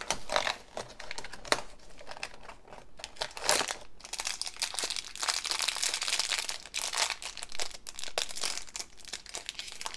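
Crinkling and tearing packaging: a cardboard flap on a toy box being pulled open, then a purple foil blind bag crackling as it is handled and torn open at its notch. The crinkling is densest in the second half.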